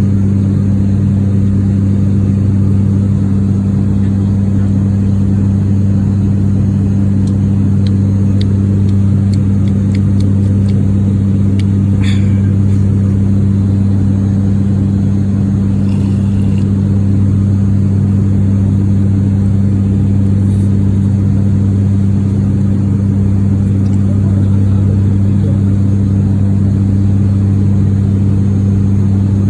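Steady propeller drone heard inside the cabin of a turboprop airliner in flight, a deep, even hum. A few light clicks come between about 8 and 12 seconds in.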